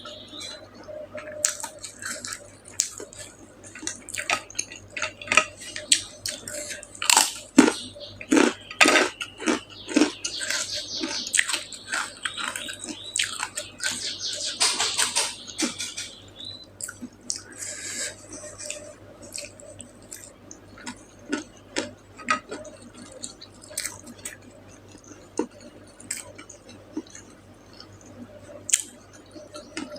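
Close-up eating sounds: a person chewing and smacking their lips, with scattered clicks and clinks of dishes or cutlery. The sounds are busiest about seven to sixteen seconds in.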